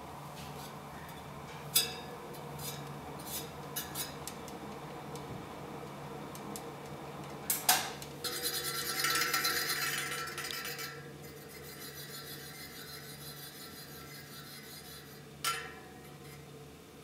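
Spinning bicycle wheel with a few sharp metallic clicks and knocks, and about halfway through a burst of rapid ticking rattle lasting some three seconds, over a steady low hum.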